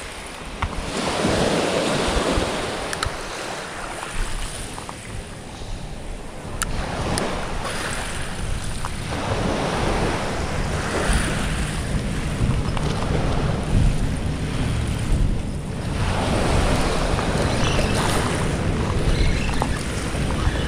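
Small waves washing in on a sandy shore, swelling every few seconds, with wind rumbling on the microphone.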